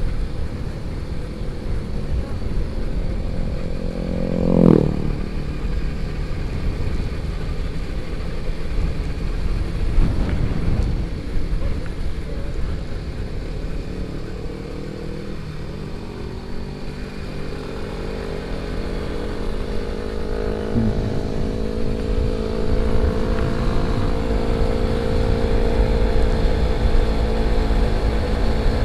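Motorcycle on the move, its engine running under a steady rumble of wind and road noise; in the second half the engine note climbs slowly as it accelerates, then eases near the end. A short pitched sound cuts in about five seconds in.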